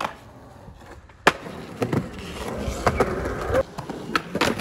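Skateboards on a concrete ledge and pavement: a sharp clack of the board about a second in, then wheels rolling over concrete with several knocks, and more board clacks near the end.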